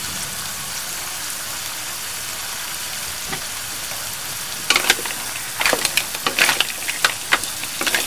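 Mussels sizzling steadily in a butter sauce in an aluminium wok. From about five seconds in, a wooden spatula stirs them, with a run of quick clacks and knocks of shells against each other and the pan.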